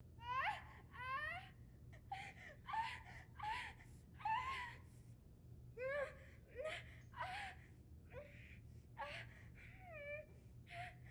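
A young woman gasping and moaning in pain through labour contractions: short strained cries about once a second, some sliding up in pitch and some falling, over a low steady hum.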